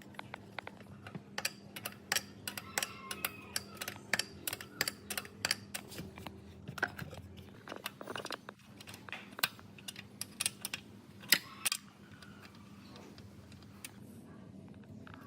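A run of light, sharp clicks and taps, irregular and a few a second, stopping about twelve seconds in, over a faint steady hum.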